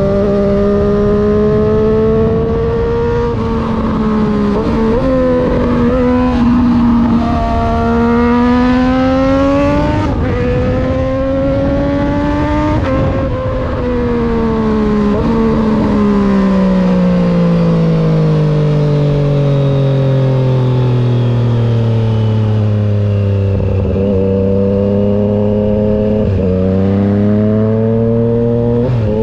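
2020 Triumph Street Triple 765 RS's inline three-cylinder engine through an unbaffled SC Project full exhaust system, heard while riding. It pulls up through the gears, the pitch rising with short breaks at each shift, then falls steadily as the bike slows. It settles to a low steady note, with two brief jumps in pitch near the end.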